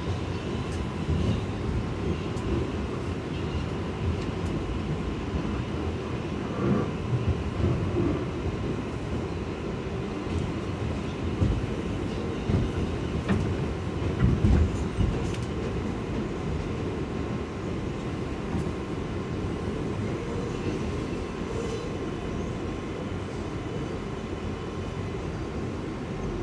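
New York City subway car (an R188 on the 7 line) running between stations, heard from inside the car. The wheels on the rails make a steady low rumble, with a few louder knocks around the middle.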